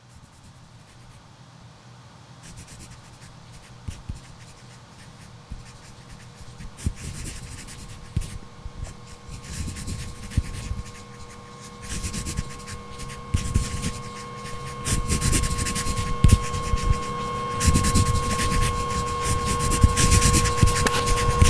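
Pencils scratching on paper, a dense run of small scratches growing steadily louder. A steady hum comes in about halfway and swells with them.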